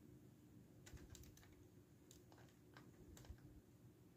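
Faint, irregular clicks and taps of plastic LEGO parts being handled on a brick-built F-14 Tomcat model, over a low steady room hum.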